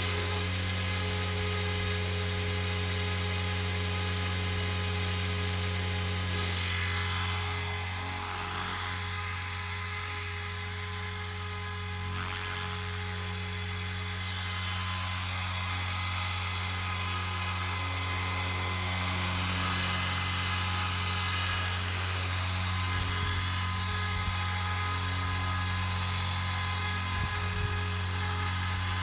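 Radio-controlled helicopter in flight: a steady high-pitched whine over a low rotor hum. It grows softer for a few seconds as the helicopter flies farther off, then louder again as it comes back.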